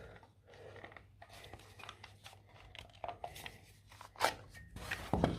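Faint handling noises of hard plastic power-tool parts, a battery adapter and battery being moved about: light rustles and small clicks, with a sharper click about four seconds in and another near the end.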